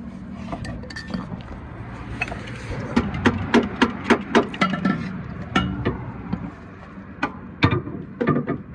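Hammer blows on the starter motor of a 2010 Dodge Charger: a rapid series of sharp metallic strikes, about three a second, starting about three seconds in, with a pause before more strikes near the end. The starter is being tapped because it only clicks even though the battery is good.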